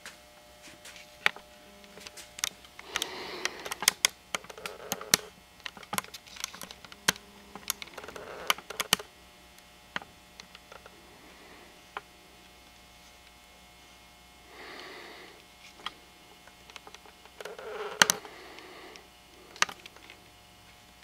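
Scattered sharp clicks and clacks of metal parts and tools being handled while a Winchester Model 1903 .22 rifle is taken apart. The clicks are bunched in the first half, with another cluster near the end, and are mixed with a few short stretches of rustling and scraping.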